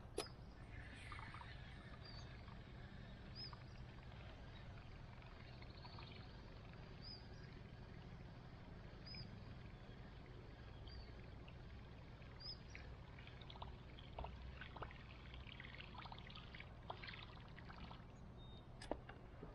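Quiet lake ambience from a canoe: a faint steady low hum, a small bird giving short high chirps every second or two, and light water lapping with small clicks, more of them in the second half.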